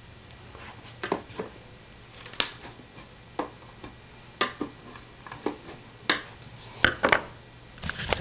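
Screwdriver working out the mounting screws of a small subwoofer driver. About ten sharp clicks and scrapes come at irregular intervals as the screws turn and the speaker is handled, over a low steady hum.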